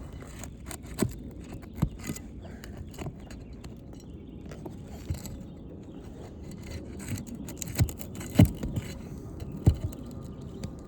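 Scattered sharp knocks and scrapes of hand work on asphalt roof shingles during a shingle repair, with the loudest knock about eight seconds in, over a steady low rumble.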